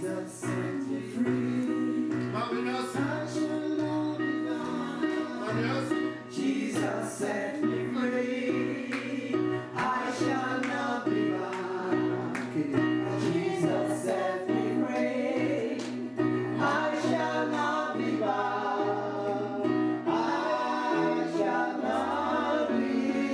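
Gospel worship singing: several voices singing together, led through a microphone, over sustained keyboard chords with a regular beat.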